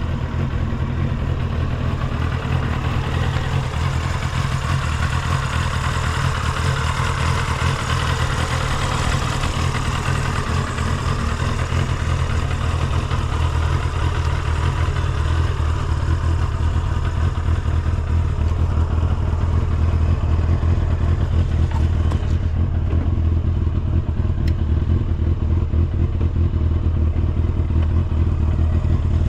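Kawasaki Balius II (ZR250B) 250 cc inline-four engine idling steadily after a cold start. It runs evenly, with no abnormal noise.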